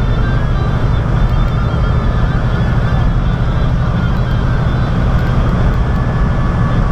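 Semi-truck's diesel engine droning steadily with tyre and road noise, heard from inside the cab while cruising at highway speed.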